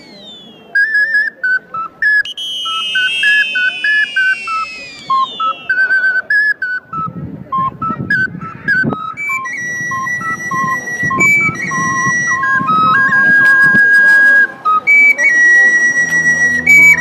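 Background music led by a flute-like wind instrument playing a single-line melody of short stepping notes. Falling pitch swoops come in about two seconds in, and lower tones join near the end.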